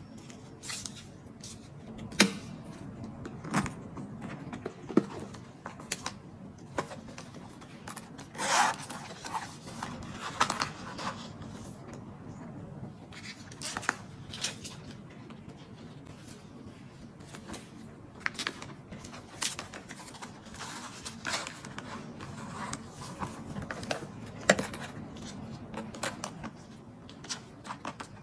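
Scattered clicks, taps and rustles of small items being handled and packed into a leather handbag, including plastic cards, with a longer scraping stretch about a third of the way in.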